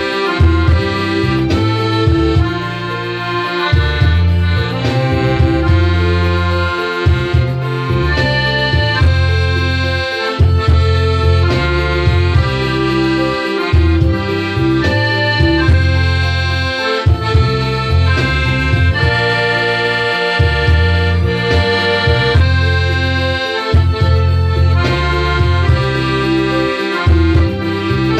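Hohner piano accordion playing a tune in held, reedy notes that change several times a second, with low bass notes pulsing underneath.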